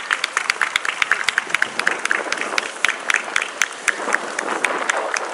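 Spectators applauding, a dense patter of hand claps with several clappers close by, thinning out near the end.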